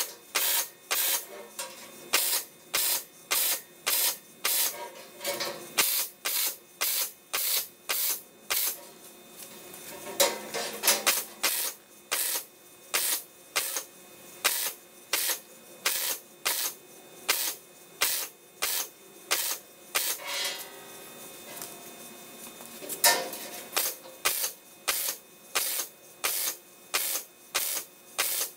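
Welding arc on the steel baffle seams of a fuel tank, sounding in short, evenly spaced bursts about two a second as the baffles are tacked in. The rhythm breaks briefly about ten and about twenty-one seconds in.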